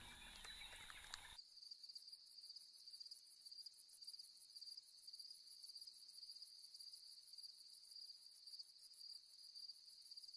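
Faint, steady, high-pitched trilling of night insects, cricket-like, starting about a second and a half in.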